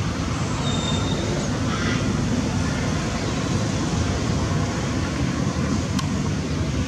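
Steady low rumble of roadside motorbike and car traffic, with a brief faint high tone about a second in and one sharp click near the end.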